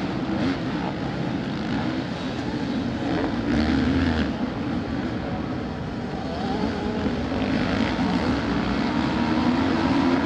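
Several motocross bikes running on a dirt track, their engines revving up and down as they race past, louder about four seconds in.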